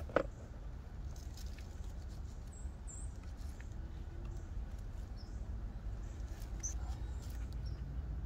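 Handling noise from the unpowered mini chainsaw and its cardboard box: a sharp click just after the start, then light rustles and small ticks as the saw is picked up and gripped. Under it runs a low steady rumble, and a few faint high squeaks come through.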